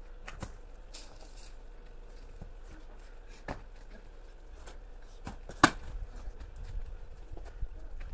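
Scattered sharp knocks, one far louder than the rest about five and a half seconds in, with a low wind rumble on the microphone growing in the second half.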